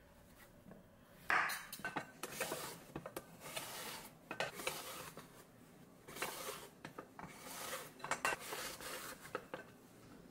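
Zucchini being drawn over a stainless steel mandoline slicer in repeated rasping strokes, the thin slices falling into a glass bowl. A single sharp knife chop on a wooden cutting board about a second in.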